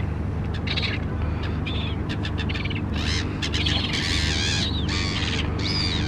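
Gulls calling in short, high, wavering calls again and again, most crowded about four seconds in, over a steady low drone.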